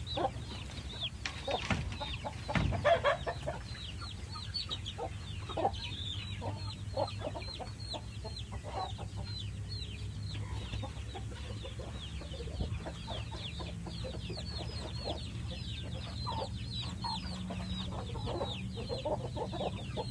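Chickens clucking, with a constant stream of short, high, falling peeps over them. The clucking is loudest a second or two in, and a steady low hum runs underneath.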